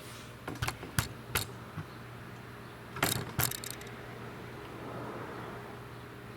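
Sharp metallic clicks and knocks of tools being handled during a compression test: a few about half a second to a second and a half in, and a short clatter about three seconds in.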